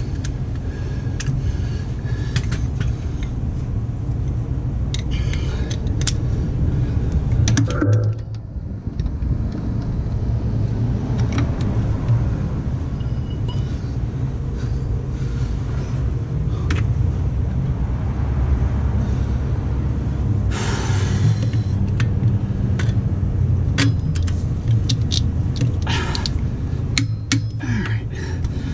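Hand ratchet and wrench working the mounting bolts of a rebuilt starter: scattered sharp metal clicks and clinks, bunched together near the end, over a steady low rumble.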